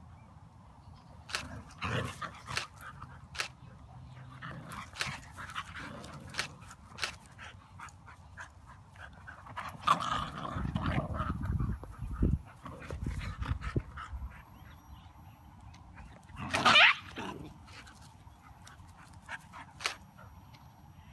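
Siberian huskies, a puppy with an adult, play-fighting: scattered short clicks and scuffles, a stretch of low rumbling noise around ten to thirteen seconds in, and one loud high dog cry about sixteen seconds in.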